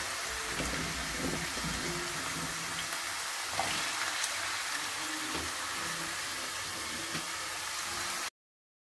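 Raw potato strips sizzling in hot oil in a saucepan, a steady crackling hiss of a first, half-cooking fry for french fries. The sound cuts off abruptly near the end.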